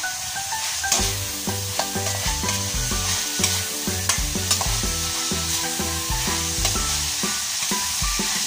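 Metal spatula stirring and scraping pork and string beans around a sizzling aluminium wok, with repeated clicks and scrapes of the spatula against the pan. Light background music plays underneath.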